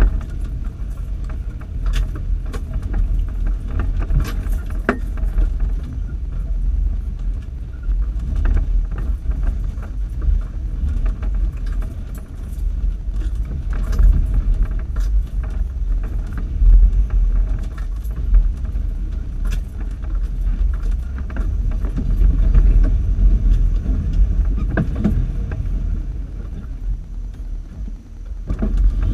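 A 4x4's engine rumbling as it crawls up a steep rocky trail, with frequent sharp clanks and rattles from the body and from rocks under the tyres.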